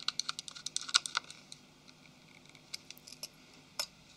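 Small sharp clicks and ticks of a small Phillips screwdriver working the tiny screws of a phone's plastic mainboard cover. They come in a fast run for about the first second and a half, then a few scattered clicks as the phone is handled.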